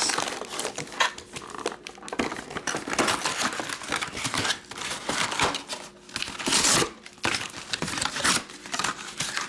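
Plastic trading-card packaging crinkling and rustling in irregular bursts as it is handled, with some tearing.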